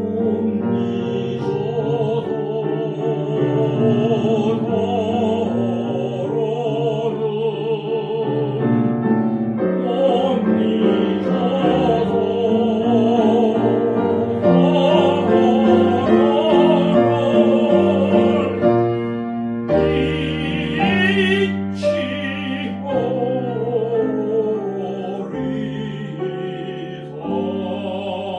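Tenor voice singing a Korean art song with a wide vibrato, accompanied by a grand piano.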